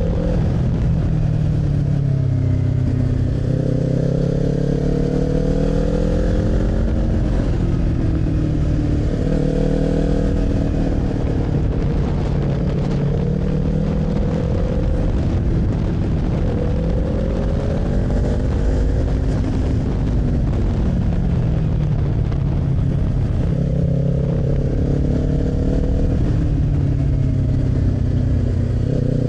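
Kawasaki Z400's parallel-twin engine under way, its note rising and falling again and again as the rider accelerates, shifts and eases off, over a steady rush of noise.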